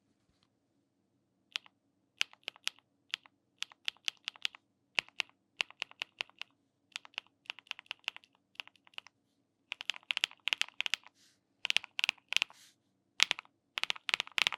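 Agar mechanical keyboard with BSUN Her Heart linear switches being typed on: keystrokes in irregular runs with short pauses, starting about a second and a half in. Each stroke is a poppy, deep clack.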